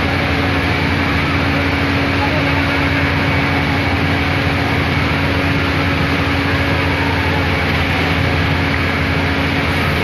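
Steady engine din with a constant hum, from fire-engine pumps running to feed the water jets, with a crowd murmuring.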